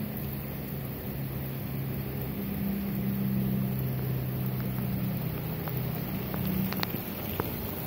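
Steady heavy rain falling, an even hiss, with a low droning hum underneath that shifts in pitch a few times, and a few sharp drips near the end.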